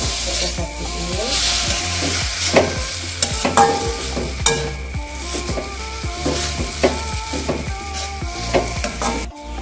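A metal spatula scraping and knocking against an aluminium wok as instant noodles with cabbage and egg are stir-fried, with frying sizzle underneath. The scrapes come as repeated sharp strokes, about two a second.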